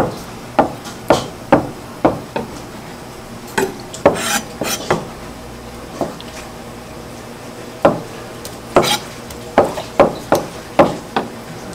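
A large kitchen knife slicing a block of raw meat, the blade knocking against the cutting surface in irregular sharp clicks. There are about a dozen clicks, with a gap of a couple of seconds midway.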